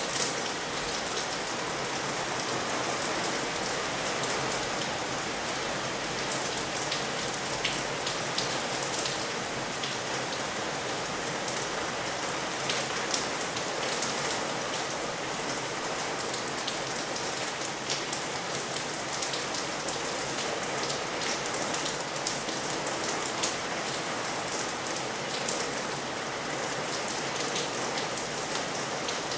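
Heavy rain falling steadily, a dense continuous hiss with many sharp drop ticks and splats on hard surfaces.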